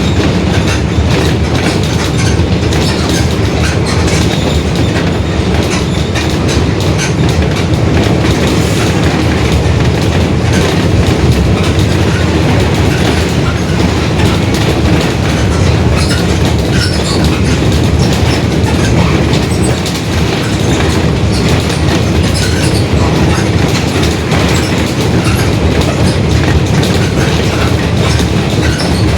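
Mercedes-Benz OF-1721 Bluetec 5 city bus under way: its diesel engine runs steadily with a low drone from a noisy differential, and the body rattles and clatters throughout.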